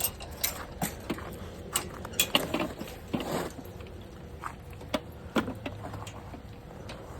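Irregular clicks and light knocks, a dozen or so over several seconds, with no steady engine sound.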